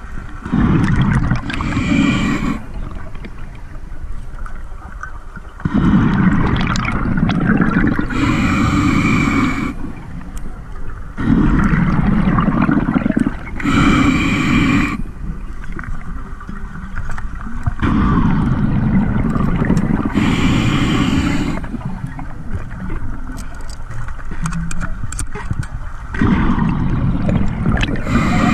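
Scuba diver breathing through a regulator underwater: a loud rush of exhaled bubbles alternating with a short hissing breath, repeating about every five to six seconds.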